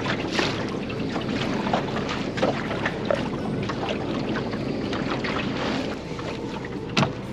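Water rushing and splashing along the hull of a small wooden sailing dinghy under way, with wind noise on the microphone. Many small splashes run through it, and one sharper knock or slap comes near the end.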